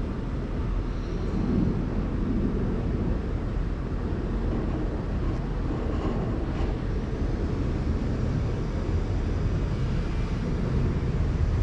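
Steady low rumble and hiss of outdoor background noise, with no distinct event.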